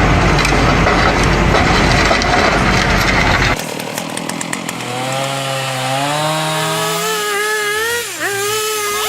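Chainsaw cutting wood, loud and noisy, cutting off suddenly after about three and a half seconds. Then a chainsaw engine's note runs with a pitch that wavers, rises and dips sharply near the end.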